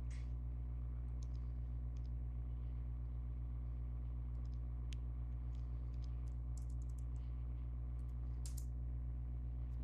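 Scattered computer keyboard taps and mouse clicks, with a quick run of key taps about two-thirds of the way through, over a steady low hum.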